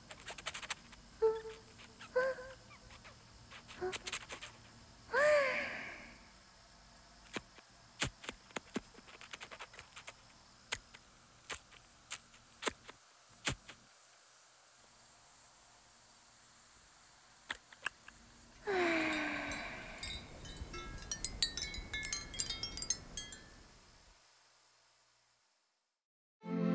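A dense chorus of crickets chirping in a night ambience, with a couple of short pitched calls that bend in pitch and a few light clicks. It fades out near the end.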